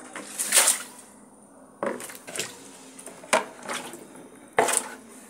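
Water splashing onto potted plants and the tiled floor in short bursts while the plants are watered, about six quick hissing splashes in five seconds.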